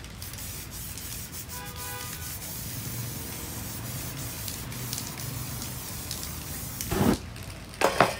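Aerosol spray-paint can hissing steadily as dark paint is misted onto a canvas, with two short, louder bursts near the end.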